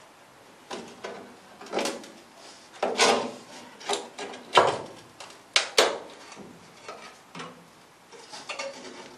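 Irregular metallic knocks and scrapes as a steel closing panel is shifted into place and clamped with locking pliers on a classic Mini's sill.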